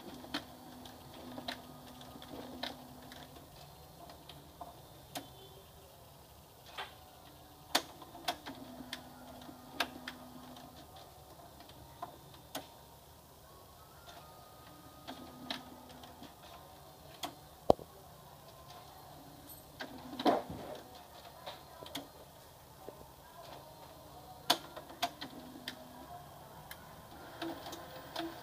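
HP LaserJet CP1025 colour laser printer's mechanism working in fits: irregular sharp clicks and several short low motor hums of about two seconds each, while it shows a toner cartridge error.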